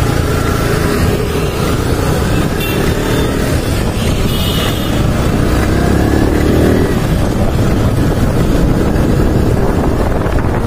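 Yamaha YZF-R15 motorcycle's single-cylinder engine running under way, rising in pitch as it revs up from about four to seven seconds in.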